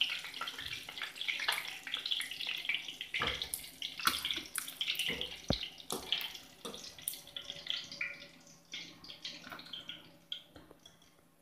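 Hot oil in a steel kadai sizzling and crackling as fried chicken pieces are lifted out with a wire skimmer. The crackling thins out and fades toward the end, with one sharp knock about five and a half seconds in.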